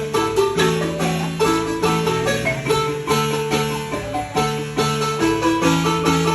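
Guatemalan marimba music: a melody played with fast repeated mallet strokes over a bass line that changes note about every half second.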